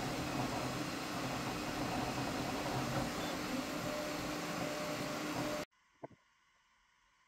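Flashforge Adventurer 5M Pro 3D printer running mid-print: a steady whir of its fans with a low hum under it. It cuts off suddenly near the end, leaving near silence and a faint click.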